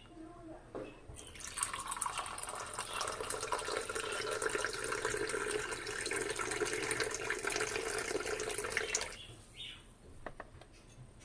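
Coffee poured in a steady stream from a porcelain pot into a ceramic cup, starting about a second in and stopping about two seconds before the end. A light click follows near the end.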